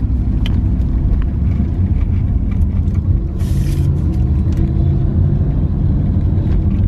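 Steady low rumble of a car driving, heard from inside the cabin, with a brief hiss about halfway through.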